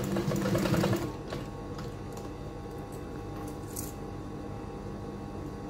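Protex industrial sewing machine stitching a short run for about a second, then stopping, leaving a faint steady hum and a few light clicks.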